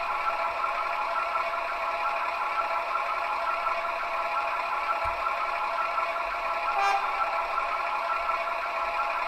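Gauge 1 model diesel locomotive, a V 160 pre-series, running slowly along the track with a steady mechanical running sound. There is a brief higher-pitched sound about seven seconds in.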